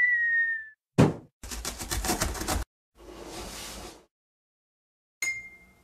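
Cartoon intro sound effects: a short high tone sliding slightly down, a single hit about a second in, a rapid rattle lasting just over a second, a soft whoosh, then a bright ding near the end that rings on.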